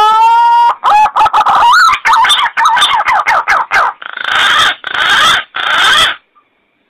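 Green pigeon (punai) lure call: the end of a long rising whistle, then a run of quick, wavering whistled notes, finishing with three harsh rasping notes before it stops about six seconds in.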